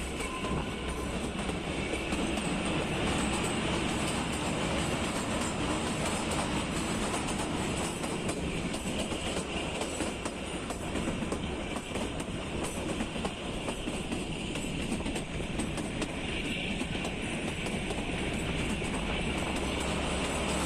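Narrow-gauge Kalka–Shimla toy train running along the line, heard from aboard a carriage: a steady rumble of wheels on rail with a faint clickety-clack of rail joints.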